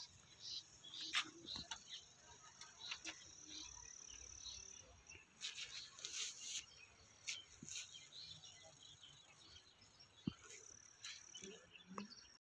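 Faint outdoor field ambience: small birds chirping here and there over a steady high-pitched whine that fades out about five seconds in and comes back near the end, with a few soft clicks.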